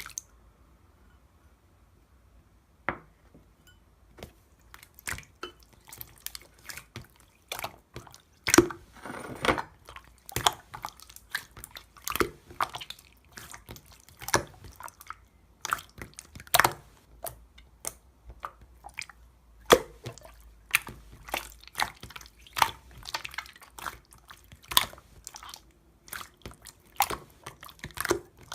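Clear slime being squeezed and pressed by hand, making irregular wet clicks and pops. They are sparse at first and come several a second from about four seconds in.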